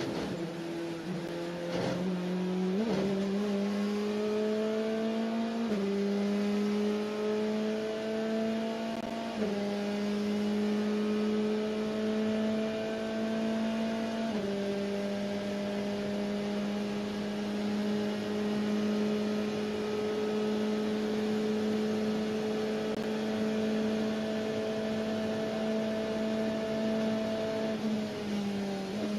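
Corvette C8.R race car's 5.5-litre flat-plane-crank V8, heard from inside the cockpit, pulling hard through several upshifts, each a small step in pitch. It then holds at steady high revs for a long stretch and eases off near the end.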